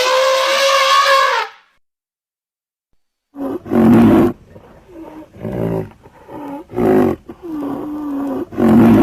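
Sound-effect roars of prehistoric beasts. A high, held cry bends downward and cuts off about one and a half seconds in. After a short silence comes a run of lower roars and growls, about six of them, loudest a second after they begin and again near the end.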